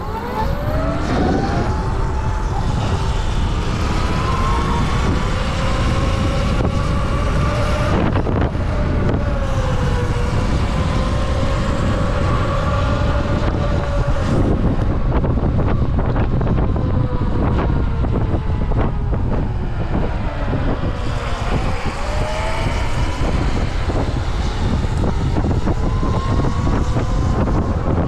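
A vehicle under way: a motor's whine that rises as it pulls away, dips twice and climbs again with changes of speed, over heavy wind rumble on the microphone.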